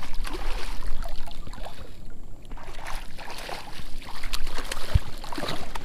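Wind buffeting the microphone over water splashing and sloshing around a kayak, with scattered small clicks and a short low thump against the hull about five seconds in.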